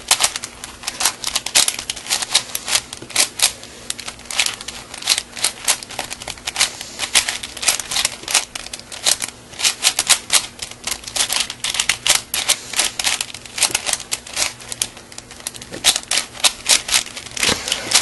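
Plastic layers of a 4x4 Rubik's cube clicking and clacking as they are turned quickly by hand, an irregular run of several sharp clicks a second.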